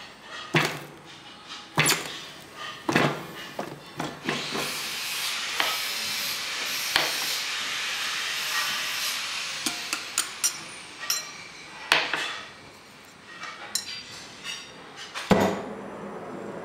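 Sharp metal-on-metal knocks as red-hot steel rod is formed in a clamped jig under a press ram: several strikes in the first four seconds, then a steady hiss lasting about five seconds, and two more loud knocks near the end.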